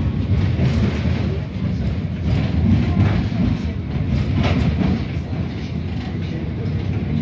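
Running noise inside a PESA 2014N low-floor tram under way: a steady low rumble of wheels on rails, with a few clacks from the track in the middle.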